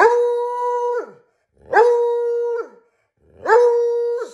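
Hound dog howling three times, each howl held at a steady pitch for about a second, rising into it and dropping away at the end.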